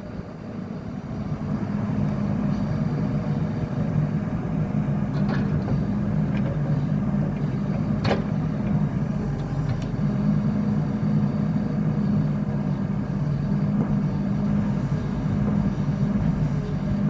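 Caterpillar 308D CR mini excavator's diesel engine running steadily, with a couple of short knocks, the clearest about eight seconds in.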